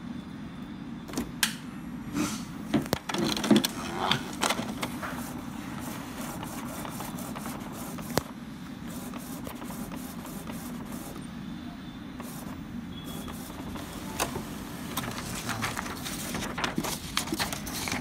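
Epson L385 inkjet printer running a nozzle check print: a steady mechanical hum with bursts of clicking and clatter from the paper feed and print-head carriage, near the start and again near the end.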